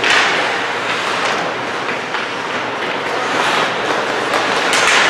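Ice hockey play in a rink: skates scraping and carving on the ice, with scattered clacks of sticks and puck and a sharper crack near the end.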